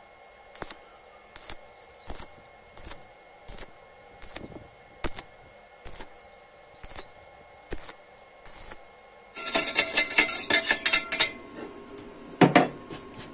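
Stick welding on thin square steel tubing: a faint arc crackle broken by sharp pops, about one or two a second. About nine and a half seconds in, a couple of seconds of rapid metallic clattering, then a single loud metal clank near the end.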